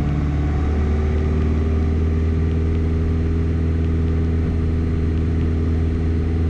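Single-engine piston aircraft engine and propeller at full takeoff power on the takeoff roll, a steady drone heard inside the cockpit.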